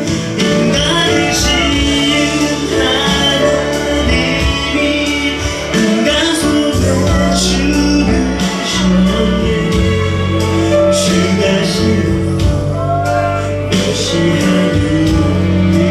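Christian worship song: a voice singing over instrumental accompaniment.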